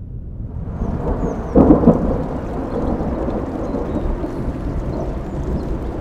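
Thunder with heavily boosted bass: a rumble builds, a loud clap breaks about a second and a half in, and a long rolling rumble follows.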